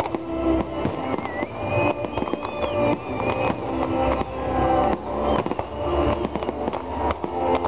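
Fireworks display: aerial shells and low-level effects bursting in quick succession, with repeated sharp bangs and crackling, over steady music.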